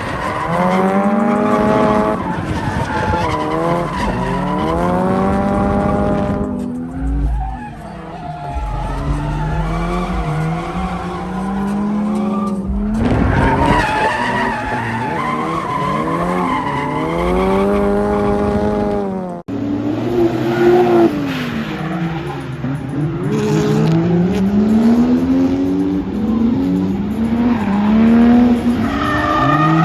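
Turbocharged Lexus SC300's 1JZ-GTE inline-six revving up and falling back again and again while drifting, with tyres skidding. The sound breaks off sharply about two-thirds of the way through, then carries on.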